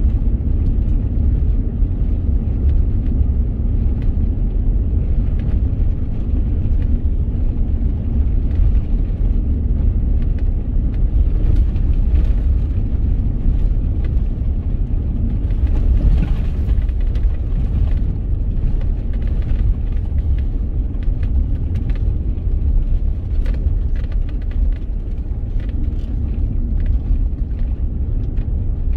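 Vehicle driving on a gravel road: a steady low rumble of tyres and road, with scattered small clicks throughout and a brief cluster of them about halfway through.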